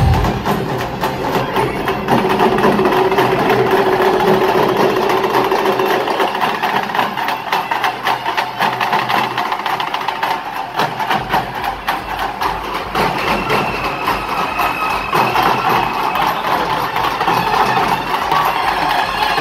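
Loud street-procession music with fast, dense drumming, from a lit-up sound-system truck and the drummers walking with it.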